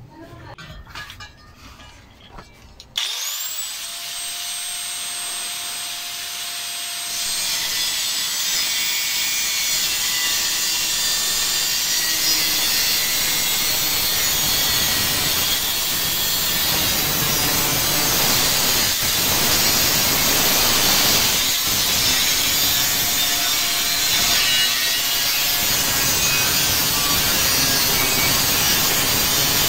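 Angle grinder switched on about three seconds in, spinning up with a rising whine. From about seven seconds on, its cutting disc bites into a steel refrigerant cylinder, giving a loud, steady grinding of abrasive disc through sheet metal.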